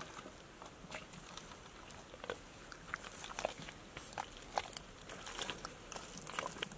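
Footsteps of rubber boots squelching through wet mud, an irregular short squish or click with each step at a walking pace.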